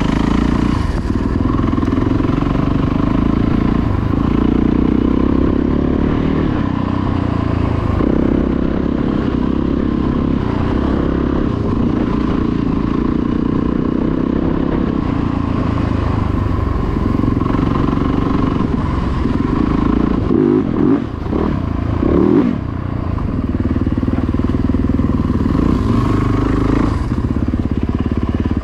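Dirt bike engine running hard while riding a trail, its note rising and falling with the throttle, with a few quick drops and jumps about twenty seconds in.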